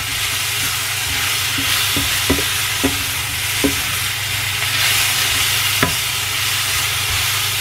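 Shrimp, tomato and bell pepper stir-frying in a nonstick frying pan: a steady sizzle, with a spatula knocking and scraping against the pan a few times at irregular moments, over a steady low hum.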